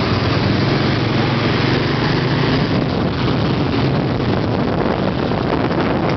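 Motorcycle engine running steadily while riding through traffic, under heavy wind and road noise.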